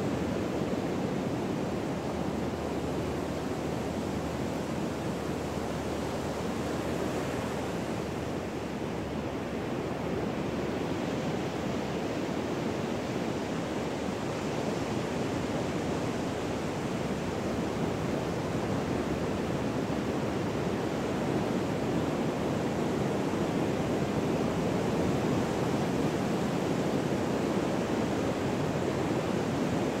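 Pacific Ocean surf washing onto the beach: a steady, even rush of breaking waves.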